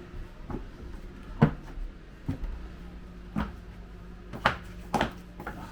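A series of about seven short knocks and clunks at irregular intervals, the loudest about a second and a half in and again near the end, over a faint steady hum.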